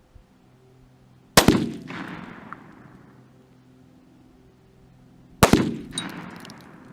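Two AR-15 rifle shots about four seconds apart, each a sharp crack followed by a long echo that fades over a second or two.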